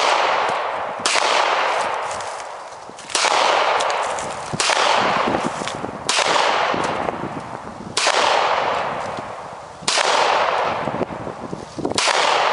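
Gunshots fired one at a time, about seven in all, one every one and a half to two seconds, each followed by a long fading echo.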